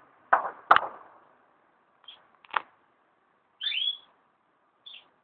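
Gunfire from armed clashes: two sharp shots a little under half a second apart near the start and a single crack about two and a half seconds in, with birds chirping in between.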